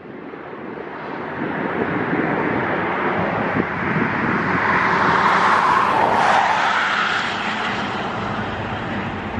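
Jet engines of a Boeing 787 airliner rolling along the runway: a steady rushing roar that swells over the first few seconds and then holds.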